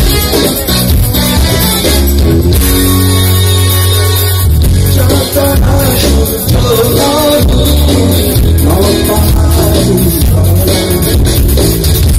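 Live rock band playing loud on electric guitars, bass, drums and keyboard, with a held chord about two and a half seconds in before a moving melodic line picks up again.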